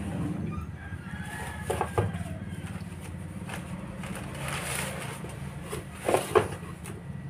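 Plastic wrapping rustling and crinkling as a rifle scope is unpacked from its box, with the loudest crinkles about six seconds in, over a steady low engine-like hum.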